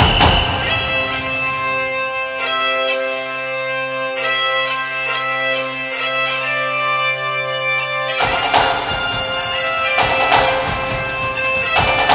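Music: a bagpipe tune played over a steady drone. The drone stops about eight seconds in and drums and percussion come back in.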